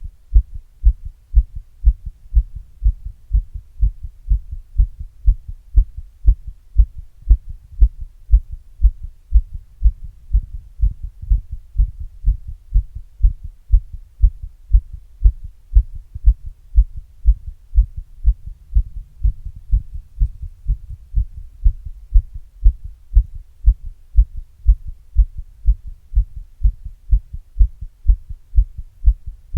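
Human heartbeat heard close up through an earbud microphone held in a glass against the chest: a steady run of low, muffled lub-dub thumps, each strong beat followed by a softer second sound.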